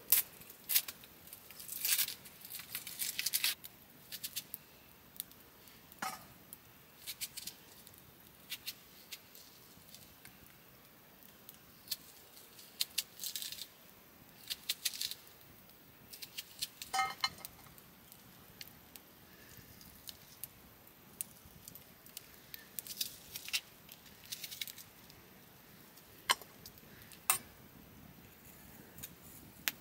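Intermittent light clinking and rattling of small hard objects knocking together, in short irregular bursts with quiet gaps between, one clink ringing briefly about two thirds of the way through.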